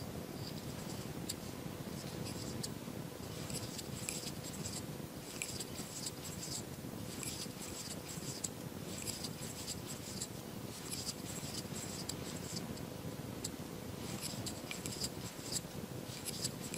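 Faint scratchy rustle of a crochet hook drawing yarn through loops while working a chain, in short scratchy spells about once a second with brief pauses between.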